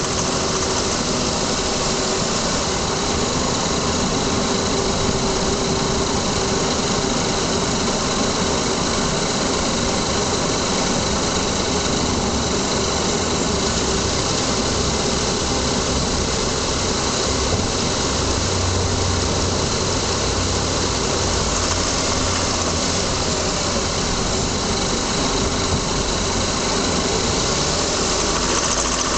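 2000 Lexus ES300's V6 engine running, heard from inside the engine bay while driving, with a rattling or ticking noise from beneath the car. The owner has checked the heat shield and has not found the cause.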